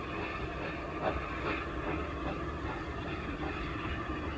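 Unrebuilt Bulleid West Country class Pacific steam locomotive 34092 'Wells' running past under steam: a steady low rumble of the engine and wheels on the rails, with soft irregular puffs of exhaust about every half second.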